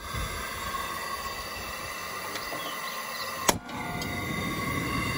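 Camp Chef Mountaineer propane camp stove burner running with a steady hiss as its control knob is turned. A single sharp click comes about three and a half seconds in.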